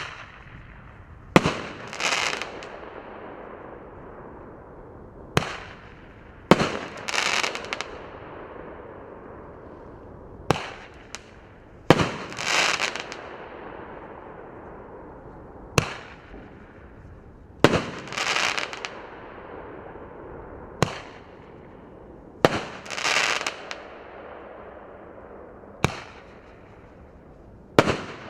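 Roman candle firework firing shot after shot, a sharp pop every few seconds, each followed within about a second by a crackling burst. A steady hiss of burning runs between the shots.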